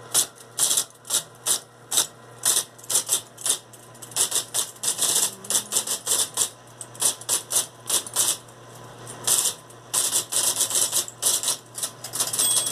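IBM Selectric Model 71 electric typewriter typing: its typeball strikes in quick, irregular runs of keystrokes, over the steady hum of its running motor, an electrical whirring.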